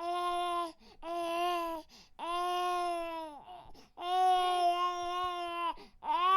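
Infant crying: a run of long, steady wails, each held for about a second, with short catches of breath between them. The last wail starts just before the end.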